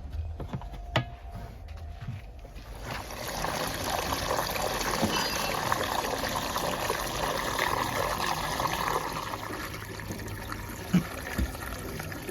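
Wet mud pouring and sliding out of a JCB 3DX backhoe loader's bucket into a tractor trolley. It is a rushing, pouring noise that starts about three seconds in and tapers off, over the low steady running of the engine.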